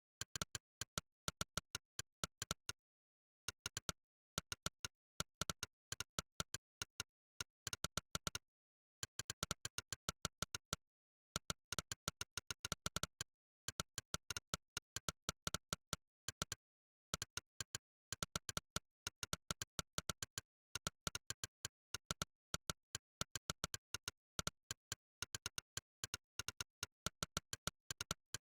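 Monkeytype's synthetic "click" typing sound, one short, sharp click per keystroke, played in quick runs of several clicks a second with short pauses between them.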